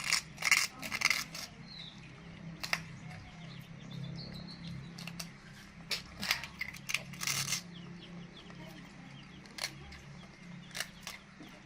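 A baby monkey biting and chewing crisp rice cakes: short crunches in scattered clusters, several right at the start and more around six to seven seconds in, with single crunches later, over a low steady hum.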